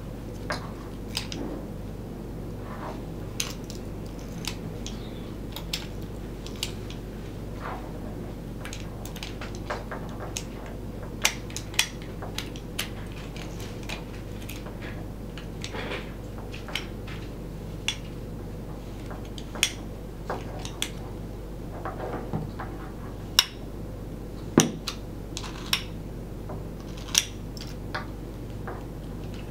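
Irregular metallic clicks and clacks of a stainless steel drop T-handle lock being worked by hand: the handle, key cylinder and rear latch linkage clicking as they are turned and moved.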